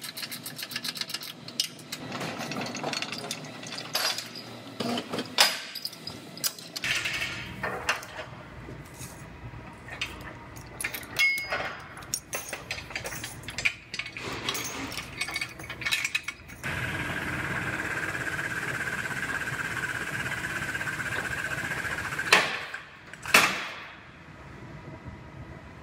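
Metal work sounds of a frame-rack pull being rigged and run: many sharp clanks and rattles of metal on metal, then a steady mechanical running sound for about five seconds, broken by two loud knocks.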